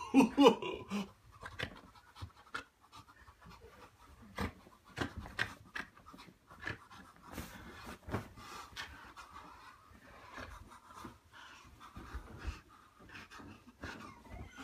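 Cloth rustling and handling knocks as a nightgown and bonnet are pulled on over a furry costume, with hard breathing.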